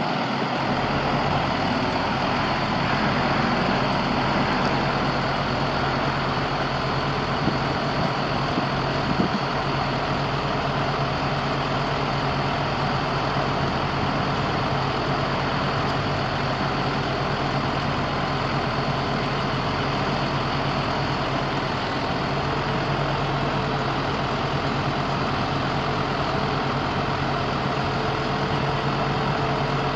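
International DT466 7.6 L inline-six diesel engine idling steadily, with a couple of small knocks about seven and nine seconds in.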